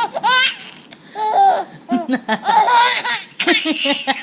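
A baby laughing hard in a string of short, high squealing bursts with breathy gasps between, so intense that it sounds close to crying.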